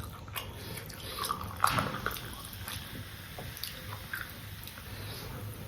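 Close-miked eating sounds: wet chewing, lip smacks and small clicks, with one louder sharp smack about a second and a half in.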